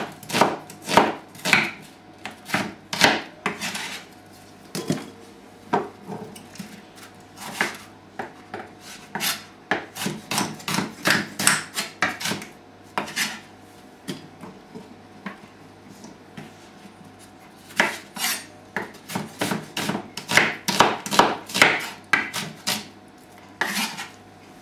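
Kitchen knife chopping an onion into large chunks on a wooden cutting board: irregular sharp knocks of the blade striking the board, in runs, with a pause of a few seconds a little past the middle.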